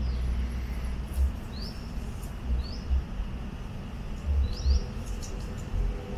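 Short, high, rising bird chirps, about five of them spaced out over a few seconds, over an uneven low rumble.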